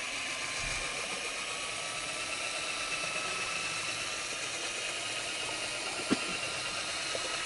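Handheld drill spinning a mixing paddle in a bucket of two-part water-based epoxy primer, running steadily at moderate speed with a faint whine. A single short knock about six seconds in.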